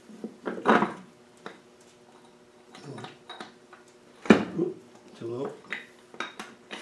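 Irregular metallic clinks and knocks as the intermediate gear set of a Land Rover LT230 transfer box is worked into its aluminium casing, with one sharper knock about four seconds in. A man's low voice murmurs at times between them.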